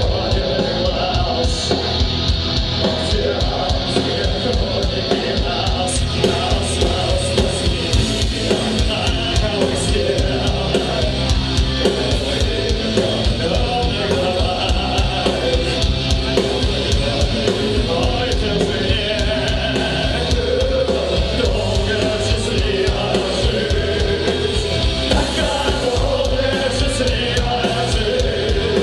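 Live rock band playing loudly over a stage PA: electric guitars and drums, with a man singing.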